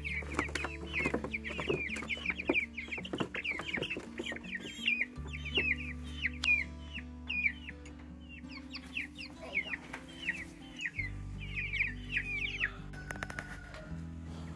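A flock of young meat chickens peeping: many short, high, downward-falling peeps in quick succession that thin out and stop near the end. Background music with steady held notes plays underneath.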